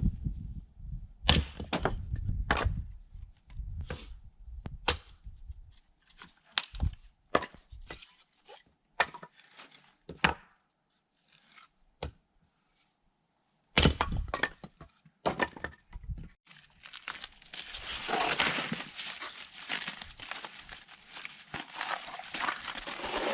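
Sawn wooden boards being picked up and dropped onto a pile, a series of separate sharp wooden knocks and clatters. Later comes a longer stretch of rustling.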